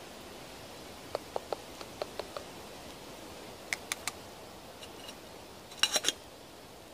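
Plastic spoon clicking against the inside of a small metal camping pot as noodles are stirred: a run of light taps, then a few sharper ones. Near the end the metal lid clinks down onto the pot in a quick cluster, the loudest sound.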